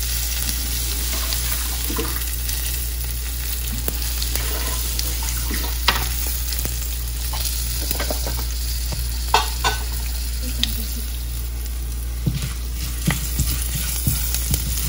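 Tadka of cumin, mustard seeds, green chilli and curry leaves sizzling in hot ghee in a pan, with scattered sharp pops and crackles as the seeds splutter. A spatula stirs the spices near the end.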